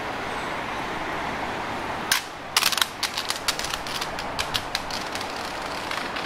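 Steady city street noise, with a rapid, irregular run of sharp clacks starting about two seconds in that gradually thins out.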